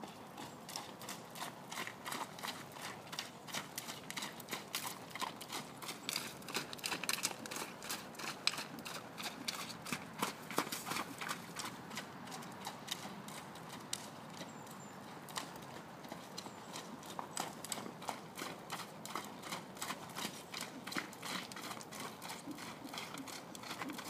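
Horse trotting on muddy grass: a steady rhythm of hoofbeats, a few each second, loudest about halfway through.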